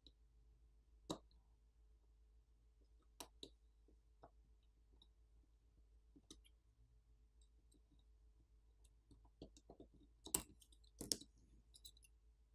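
Faint scattered clicks and taps of small repair tools against a smartphone's parts during disassembly, a few spread apart and then a quicker cluster of louder ones near the end.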